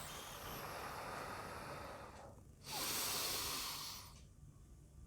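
A person breathing in through the nose for about two seconds, then, after a short pause, blowing air out through pursed lips in a louder, steady hiss for just over a second. This is the inhale and slow release of a soft-palate blowing exercise.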